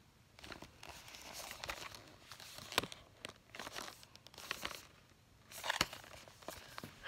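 Earbud retail box being handled and turned close to the microphone: cardboard and plastic packaging rustling and crinkling against the fingers, with small sharp clicks and a louder crinkle about six seconds in.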